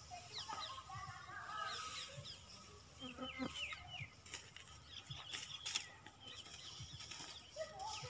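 Faint outdoor birdsong: many short falling chirps and calls from several birds. About halfway through come a few sharp crackles of dry paddy straw being handled and spread.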